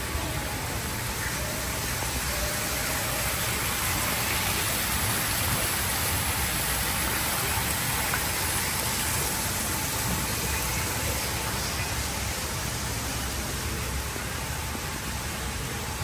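Small artificial waterfall splashing into a pond, a steady rushing and spattering that swells a little in the middle.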